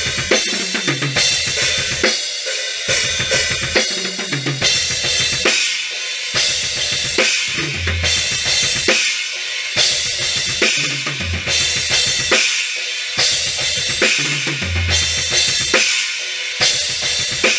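Acoustic drum kit played live: a steady run of bass drum, snare and Paiste cymbal strokes, with low drum hits recurring every few seconds.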